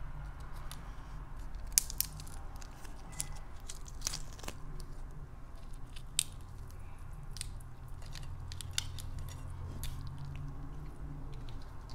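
Grilled colossal shrimp's shell being cracked and peeled off by hand, a scattering of sharp, irregular crackles and clicks over a low steady hum.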